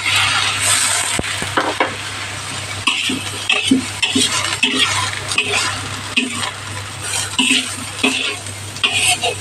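Pan of katuray leaves hissing loudly as a splash of water hits the hot pan. A utensil then scrapes and stirs through the leaves, about two strokes a second, over steady sizzling.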